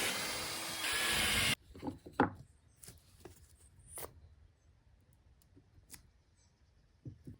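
A handheld power tool runs for about a second and a half, a little louder about a second in, then stops abruptly. After that come scattered knocks and clicks of wooden boards being handled.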